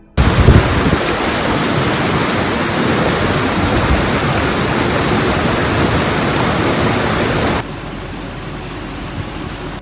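Waterfall with a steady rush of falling water that starts abruptly. It drops noticeably quieter about three-quarters of the way through and carries on at that lower level.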